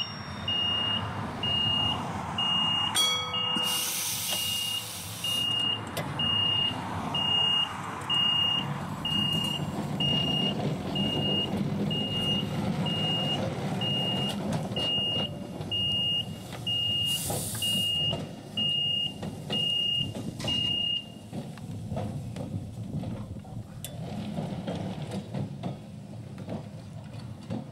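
Level crossing warning bell beeping steadily, about one and a half beeps a second, stopping about 21 seconds in, over the low rumble of Victorian Railways electric tram No. 41 running away along the track and fading. Two short hisses of air, about 4 and 17 seconds in.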